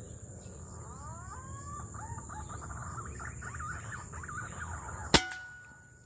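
Birds calling with many quick rising and falling whistled chirps, then a single sharp air rifle shot about five seconds in. The shot hits a green pigeon (punai).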